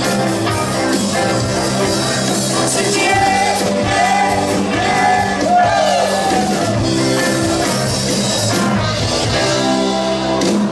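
A live rock band playing loud and steady: electric guitars, keyboard and drums, with a singer's voice over them.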